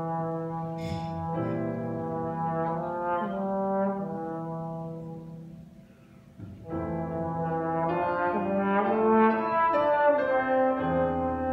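Slide trombone playing a slow melody of long held notes. The playing breaks off for about a second midway, then comes back louder.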